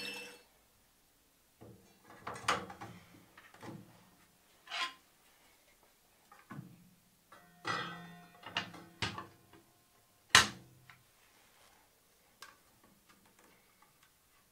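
Scattered clicks, knocks and rattles of a clear plastic table-saw blade guard and its dust hose being handled and fitted, with one sharp knock about ten seconds in.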